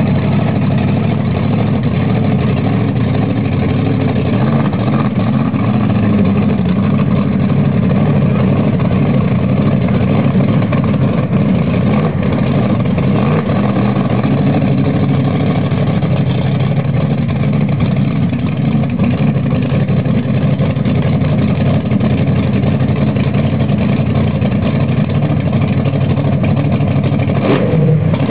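Gasser drag car's engine running loud and steady at low speed as the car is driven slowly across the lot into a parking space, with a brief change in its note near the end.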